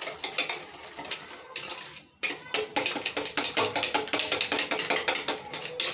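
Cake batter of eggs, butter and sugar being beaten by hand in a bowl: a fast, even clicking of the utensil against the bowl, about five or six strokes a second, with a brief break about two seconds in.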